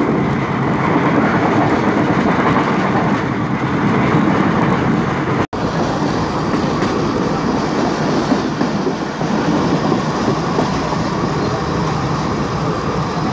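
Steady running noise of a moving passenger train heard from a coach window: wheels rolling on the rails and rushing air. The sound breaks off for an instant about five and a half seconds in.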